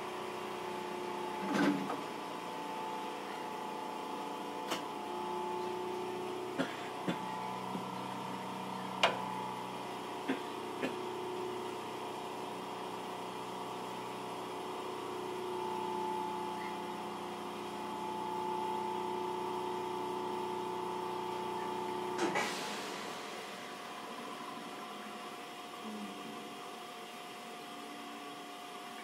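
Onboard running sound of a Hiroden 3900-series tram fitted with a Toyo Denki SiC inverter: a steady electric whine from the traction equipment, with a few sharp clicks in the first ten seconds or so. About 22 seconds in the whine cuts off with a brief clatter, leaving quieter rolling noise.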